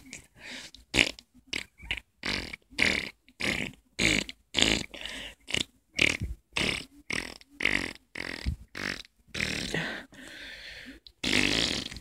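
A quick run of short, noisy mouth sound effects made by a person, about two or three a second with brief stops between.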